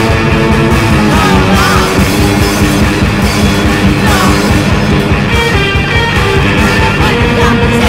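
Noise rock from a bass-less three-piece band: guitars holding chords over fast, even drumming.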